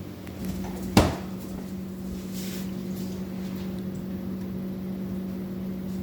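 A cupboard door shutting with one sharp knock about a second in, over a steady low hum.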